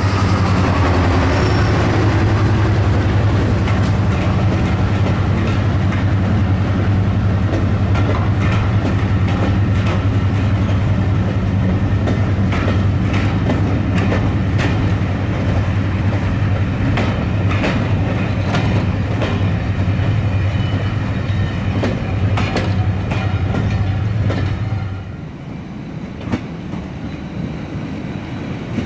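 Diesel train running past, its engine giving a steady low drone while the wheels click over the rail joints. About 25 seconds in the engine note falls away and the wheel clatter carries on more quietly.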